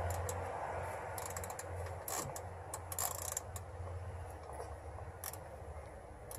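Hand tool being worked at a screw: scattered short metallic clicks, some in quick clusters, over a low steady hum.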